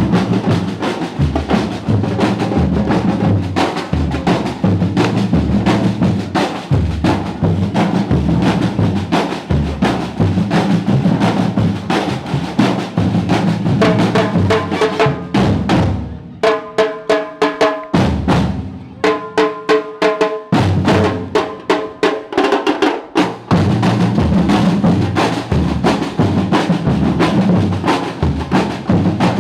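Music led by a drum kit, with bass drum and snare beating in a fast, dense pattern. Roughly halfway through, the bass drum drops out for several seconds and short, repeated pitched notes carry the rhythm before the full beat comes back.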